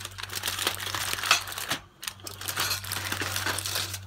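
Aluminium foil being peeled off a plate of food and crinkled: two crackly stretches with a short pause about halfway.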